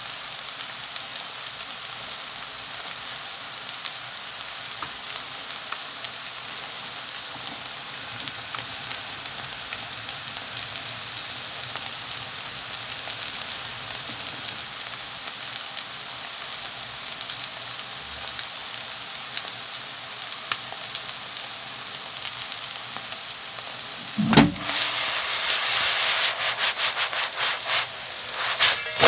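Soft-tofu and zucchini pancake batter frying in oil in a pan: a steady sizzle flecked with small pops. A sudden knock comes near the end, and after it the sizzle is louder and busier.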